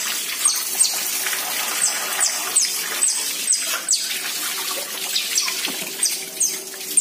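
Water jetting from a hose onto a concrete cage floor, a steady hiss. About a dozen short, high chirps that drop in pitch come and go over it.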